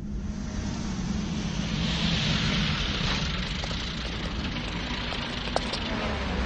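Vehicle-like noise from a film soundtrack: a low rumble under a rushing hiss that swells up about two seconds in and holds, with a few faint clicks near the end.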